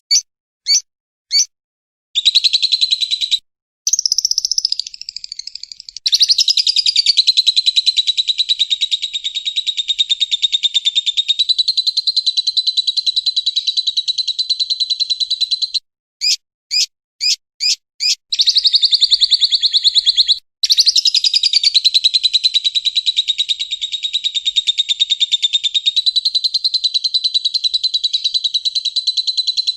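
Lovebird calling: long runs of very rapid, high chattering notes that last up to about ten seconds, broken by a handful of single sharp chirps about a third of the way in and at the very start.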